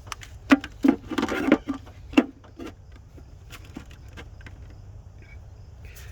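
A handful of sharp clicks and knocks, bunched in the first couple of seconds and thinning to a few faint ticks, from hand tools and metal parts being handled while working at an engine's camshaft sensor screws.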